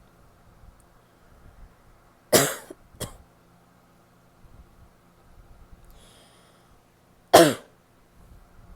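A woman coughing, a wet, barky cough: one hard cough with a shorter second one right after, about two and a half seconds in, then another single hard cough near the end.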